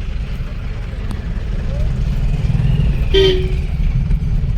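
Low, steady rumble of a vehicle on the move, with one short car horn toot about three seconds in.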